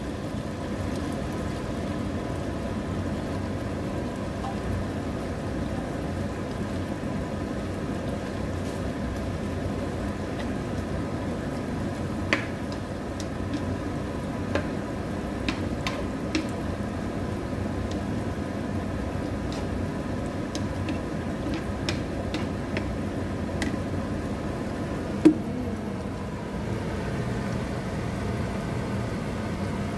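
Chicken and vegetable stew simmering in a frying pan on an induction hob, with a steady hum carrying a few faint whining tones. Sharp clicks come now and then as a utensil knocks against the pan while it is stirred, the loudest near the end.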